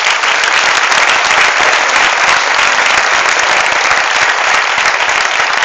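Audience applauding, dense and steady clapping throughout.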